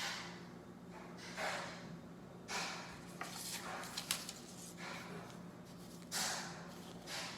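Packaging being handled during an unboxing: short rustles and slides of paper and box, half a dozen in a few seconds, with a sharp click about four seconds in.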